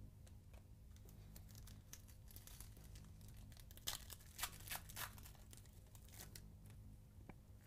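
Foil trading-card pack being torn open and crinkled by hand, quietly at first, with the loudest run of tearing about four to five seconds in.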